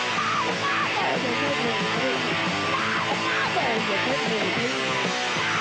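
Loud punk/heavy-metal rock band music with electric guitars, bass and a steady beat, with falling pitch glides a few times.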